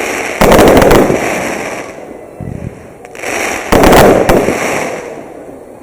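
Fireworks going off: two big bursts about three seconds apart, each a sharp bang followed by dense crackling that fades away over a second or two.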